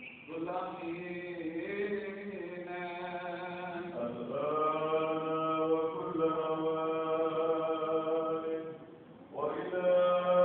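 Orthodox church chant: voices holding long, slowly moving notes over a steady low drone note, pausing briefly about nine seconds in before resuming.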